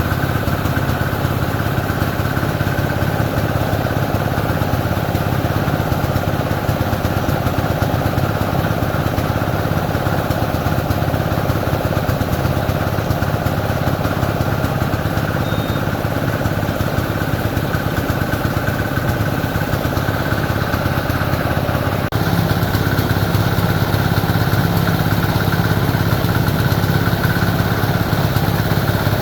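An engine running steadily at a constant speed, with an abrupt change in its tone about 22 seconds in.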